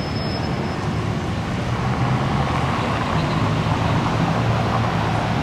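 A car driving past over a steady hum of city traffic, slowly growing louder.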